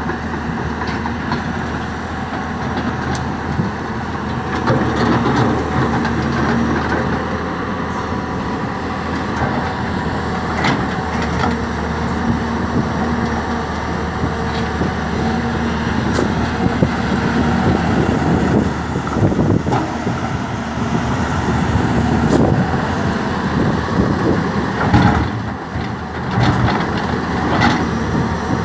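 A 20-ton hydraulic excavator's engine and hydraulics running steadily as it works a clamshell grab bucket in an open steel railway wagon, with a few sharp clanks and knocks through it.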